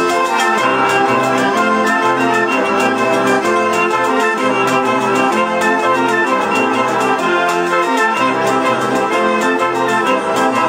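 Southern Italian zampogna bagpipes and a ciaramella shawm playing a lively folk tune over sustained bagpipe drones, with a tamburello frame drum keeping a steady beat.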